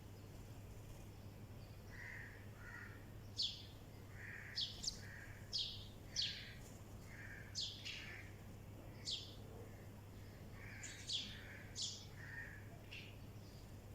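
Birds chirping: about a dozen short, sharp, falling chirps at irregular intervals, with softer, lower calls in between.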